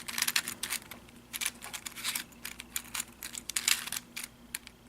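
A 3D-printed plastic 1x3x4 cuboid puzzle being twisted by hand: quick runs of plastic clicks and scrapes as its layers are turned through an algorithm.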